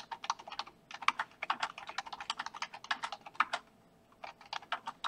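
Typing on a computer keyboard: quick runs of keystrokes, broken by a brief pause a little before the end.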